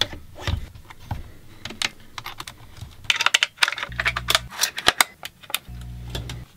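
Quick clicks, snaps and taps of camera parts being handled and fitted together on a RED cinema camera rig. A short low hum comes in twice in the second half.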